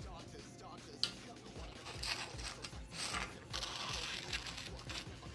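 Pumice blocks handled on a metal bandsaw table: a sharp click about a second in, then repeated gritty scraping as the stone is moved against the metal.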